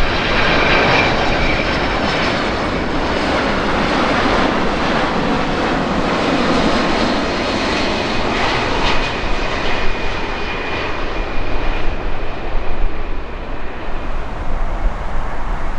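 Jet engines of a four-engine Boeing 747 on landing approach passing overhead: a steady roar with a faint high whine, dying away over the last few seconds.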